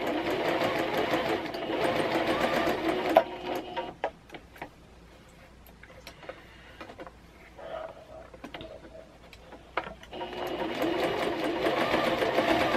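Singer Quantum CXL sewing machine stitching a straight stitch, stopping about three seconds in. A few light clicks follow as the machine is handled, and it starts stitching again for the last few seconds.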